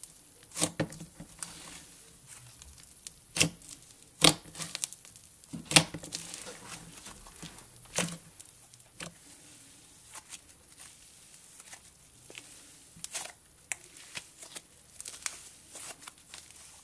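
Fluffy cloud slime being kneaded and squeezed by hand: a soft crackling and tearing as the slime stretches and folds. Sharp pops come at irregular moments every second or two, fewer and fainter in the second half.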